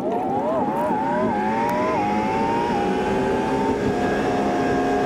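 Ram pickup truck's engine heard from inside the cab, pulling away from a turn: its pitch climbs and drops back about five times in quick succession as the automatic transmission upshifts, then settles into a steady cruise over road noise.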